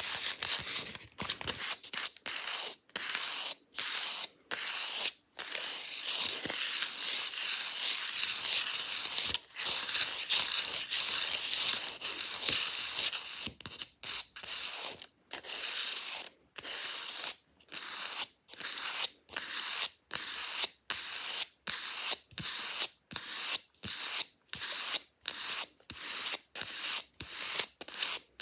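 Fake nails scratching fast over a hard surface: bursts of scratching, a long stretch of continuous scratching in the middle, then evenly spaced strokes, about three every two seconds.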